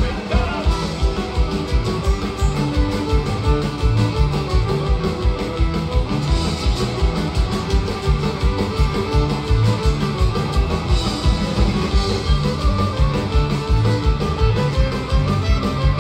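Live folk-punk band playing an instrumental passage: electric guitars and fiddle over a fast, driving drum beat, heard loud from the crowd.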